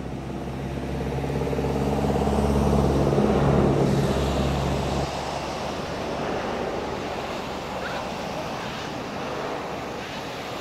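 A motor vehicle engine humming steadily, growing louder over the first few seconds and then stopping abruptly about five seconds in, leaving an even rushing noise.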